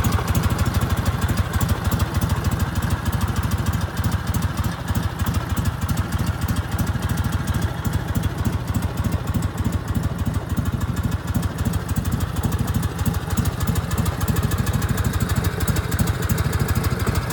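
A 1984 Harley-Davidson FLH Shovelhead V-twin engine idling steadily.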